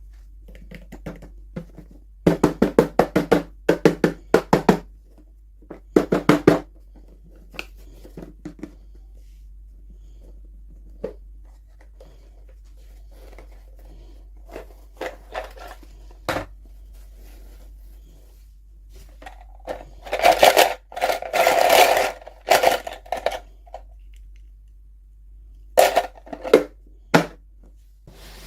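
Toy packaging being handled and torn open: bursts of rapid crinkling and rustling separated by quiet pauses, the longest and loudest burst about twenty seconds in.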